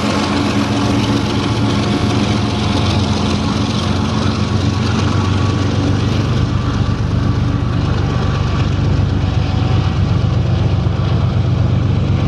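Two diesel locomotives working as distributed power at the rear of a freight train, their engines running under power with a steady low drone over the rumble of the train.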